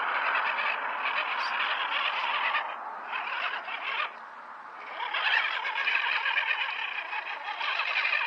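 Electric RC rock crawler driving over rocks and mud, its motor and gears whirring. The sound drops away for about a second around four seconds in, then picks back up.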